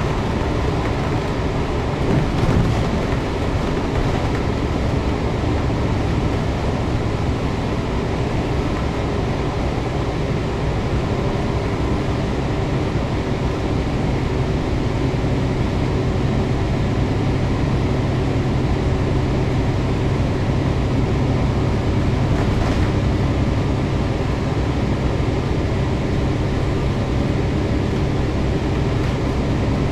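Volvo B9TL double-decker bus cruising at a steady speed, heard from inside the cabin: its six-cylinder diesel engine drones under steady tyre and road noise. There is a brief bump about two seconds in.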